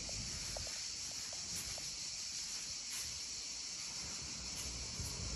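Room tone: a steady high hiss with a faint low rumble underneath, and no distinct event.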